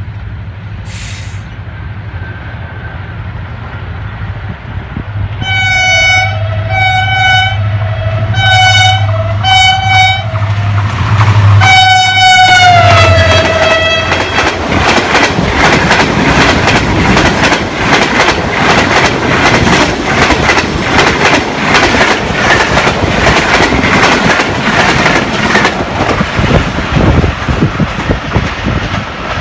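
HGMU-30 diesel locomotive approaching with a low engine rumble. It sounds its horn in a string of short blasts, then a longer blast that drops in pitch as it passes. The express's coaches then rush by with a fast, loud clickety-clack of wheels over the rail joints.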